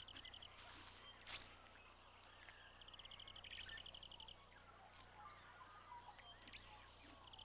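Faint outdoor ambience with an insect's rapid pulsing trill, lasting about a second and a half, about three seconds in and again at the very end, among a few faint scattered chirps and clicks.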